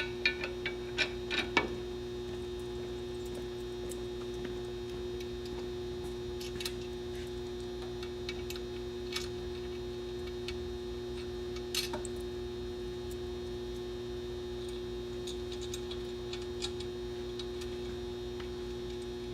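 Steady electrical hum with scattered light clicks, a few close together near the start and a sharper one about twelve seconds in.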